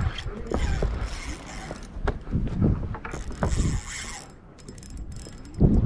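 Fishing reel being cranked in spells, with clicks and a whirring hiss, while a hooked snook is fought.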